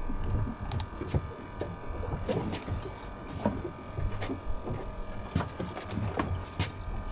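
Irregular clicks and knocks of handling a freshly caught fish and tackle on a boat, over a low steady rumble.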